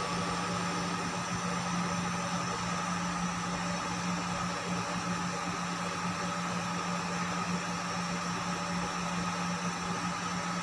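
Induction cooktop running as it heats a pot of milk: a steady hum with a fainter, higher whine over it.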